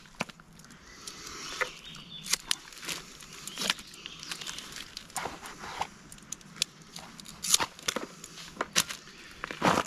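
Handling noise from a coiled rubber-jacketed 30 amp extension cord being unwrapped: irregular clicks and taps with some rustling.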